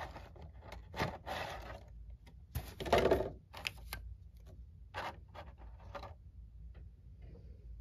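Cardboard box and clear plastic tray of a model airplane being handled and pulled apart: a few rustles and scrapes, the loudest about three seconds in, with scattered light clicks and taps that thin out near the end.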